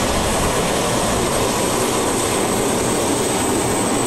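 Gas-turbine engines of a super modified pulling tractor running at full power while dragging the sled. It is a steady, jet-like whine held at one high pitch over a dense rush of noise.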